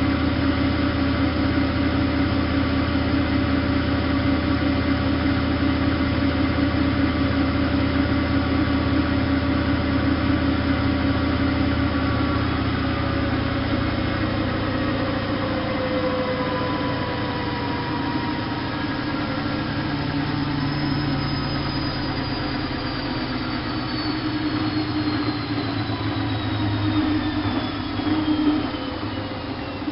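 Bosch WFK 2431 washing machine running, its motor and drum giving a steady hum; about halfway the low hum drops out and a whine falls slowly in pitch as the drum winds down from a spin.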